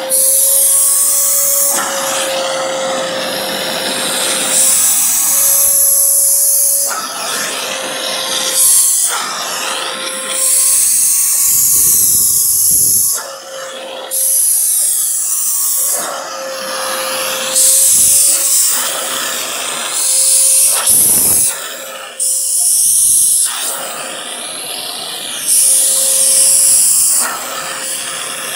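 Vacuum cleaner running with a steady motor whine, the rush of air at its brush nozzle swelling and dropping every second or two as the nozzle is worked over a cat's fur.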